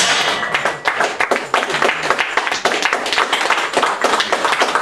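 A small group of people clapping, a dense irregular patter of handclaps with no break, applauding a finished lifting set.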